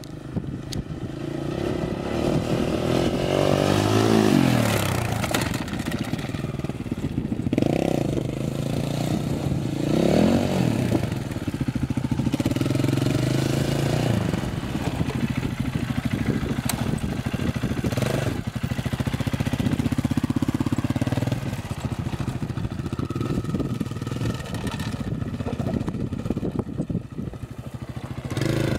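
Triton 450 supermoto quad's engine revving up and down as it is ridden hard on loose dirt, its pitch rising and falling over and over. It is loudest about four and ten seconds in.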